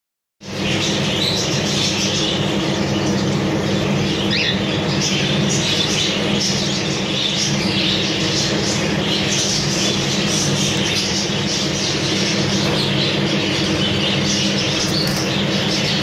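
Caged cockatiels and other aviary birds chirping and squawking continuously, many calls overlapping, over a steady low hum. It cuts in suddenly about half a second in.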